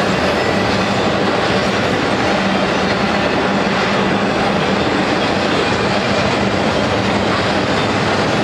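Freight cars of an intermodal trailer train passing close by: a steady, loud running noise of steel wheels on the rails with a constant low hum.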